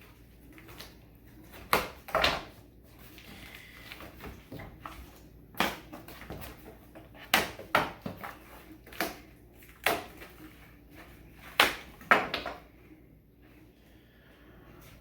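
A cardboard comic mailer being opened and handled by hand: a run of about nine short, sharp crackles and rips, with quieter rustling of cardboard and packing in between.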